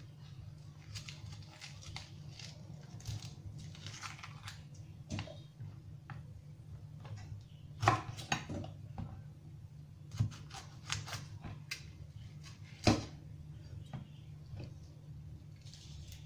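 Kitchen knife cutting long green peppers on an end-grain wooden chopping board: crisp slicing and scraping with scattered knocks of the blade on the board, two of them louder, about eight and thirteen seconds in. A steady low hum runs underneath.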